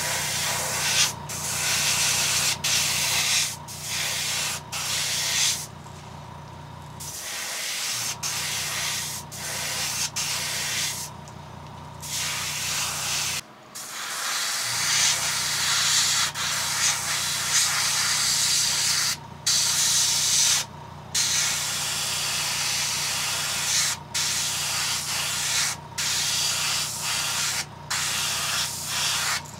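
Airbrush spraying paint onto crankbait lures: a steady hiss of air and paint in long passes, cut off briefly again and again as the trigger is let go, with longer pauses about 6 and 11 seconds in. A steady low hum runs underneath.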